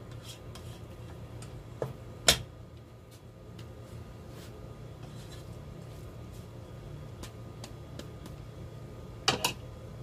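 Plastic cooking spoon knocking against the rim of a pot of sweet rice: a sharp knock about two seconds in and two quick knocks near the end, with faint scraping of the rice between, over a steady low hum.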